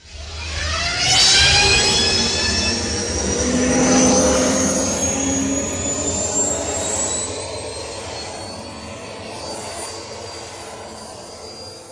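Star Wars spaceship sound effect: a low engine rumble under a whine of several tones that glide slowly upward over the first half, then the sound slowly fades away.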